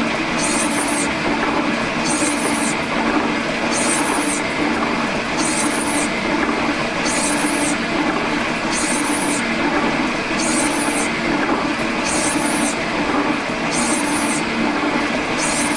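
G&E metal shaper with a shear tool taking a pass across an aluminium plate: the machine runs steadily with a low pulsing hum, and a short bright hiss comes once per stroke, about every 1.7 seconds, as the tool shears curled chips off the plate.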